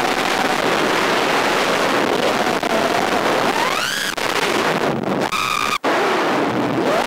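Motor and propeller of an FPV model aircraft, heard from on board over a constant wind rush. The whine rises and falls in pitch with the throttle, climbing steeply just before the four-second mark. About five seconds in it holds one steady tone for half a second, then the sound cuts out for an instant.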